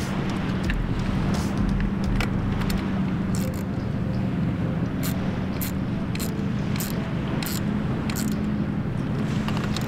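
Steady wind and surf noise on the microphone, with a run of light clicks that come about every half second in the second half. The clicks are from the Thule child-seat bracket being tightened on the bicycle's seat post.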